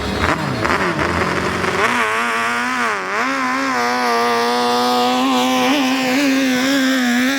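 Racing speedboat engine running at high revs: a brief dip in pitch about three seconds in, then a steady high note to the end.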